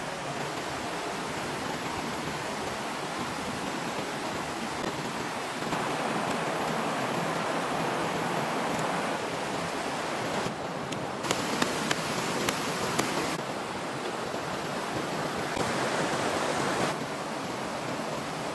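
Shallow rocky stream running steadily, an even rushing of water. A few sharp knocks sound about halfway through.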